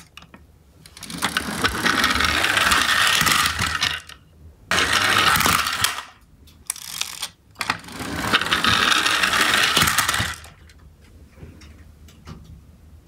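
Geared motors of small toy garbage trucks whirring in three bursts of two to three seconds each as the trucks are run across a wooden floor.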